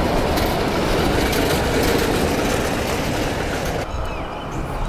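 Small motorised rail cart running along the rails of a steel railway bridge, its wheels rolling on the track. The sound is steady, then gets quieter about four seconds in as the cart moves away.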